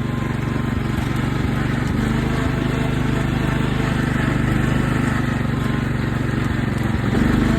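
Riding lawn mower's small engine running steadily as the hydrostatic-drive mower is driven, swelling a little louder about seven seconds in.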